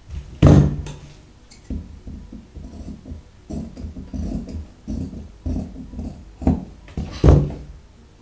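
Large tailoring scissors snipping through embroidered suit fabric in a string of uneven cuts, with fabric and scissors handled on the table. Two loud thumps of handling on the table, one about half a second in and one near the end, are the loudest sounds.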